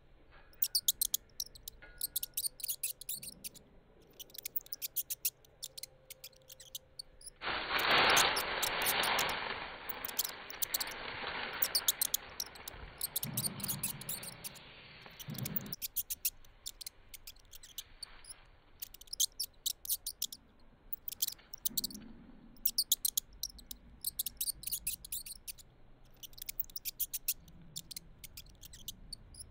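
Rat squeaks: rapid, high-pitched squeaks in quick clusters, repeating all through. From about 7 to 16 seconds a louder rustling of dry petals is heard as a kitten moves through scattered bougainvillea flowers.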